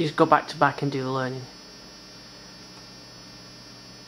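Steady electrical mains hum with a buzz of many evenly spaced overtones. A man's voice speaks briefly in the first second and a half.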